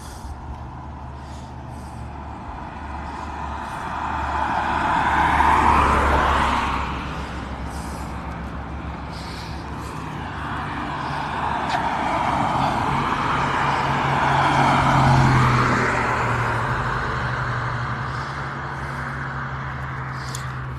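Road traffic: vehicles driving past, the tyre and engine noise swelling and fading twice, about six seconds in and again around fifteen seconds in, over a steady low engine hum.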